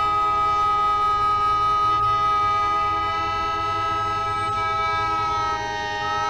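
A band's slow instrumental intro: a sustained, drone-like chord of long held notes. A high note on top steps up slightly in pitch about three seconds in and drops just before the end.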